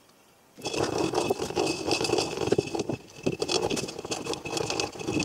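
Epoxy resin and hardener being stirred in a glass jar, a mixing stick scraping and rattling fast and unevenly against the glass. It starts about half a second in.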